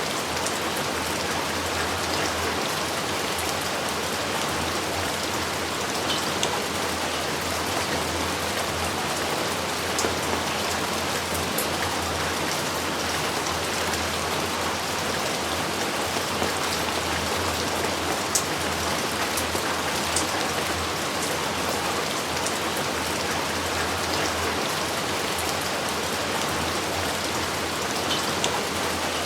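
Steady heavy rain falling and pattering on surfaces, with scattered individual drop splashes standing out.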